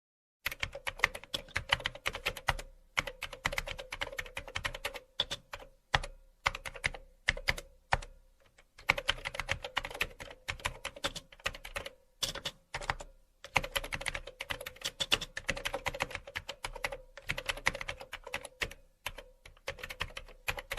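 Computer keyboard typing: rapid, irregular key clicks in runs with short pauses, over a faint steady hum.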